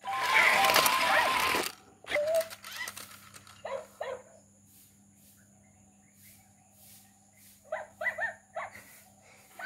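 Toy robot dog's speaker playing electronic dog sounds: a loud noisy burst at the start, two short barks about four seconds in, and a quick run of barks near the end.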